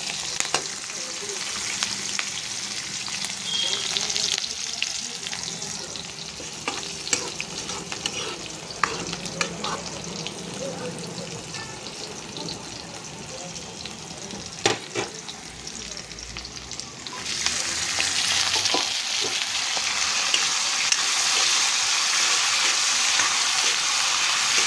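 A pot of soup boiling on a gas stove, a steady bubbling hiss with scattered clinks. About seventeen seconds in it gives way to louder sizzling: diced potatoes and radish frying in hot oil in a pan, stirred with a metal spatula.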